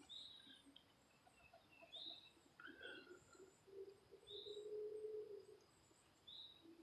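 Faint wild birdsong: a short, high chirp repeating about every two seconds, with fainter higher twittering between, and a low steady hum for a second or so near the middle.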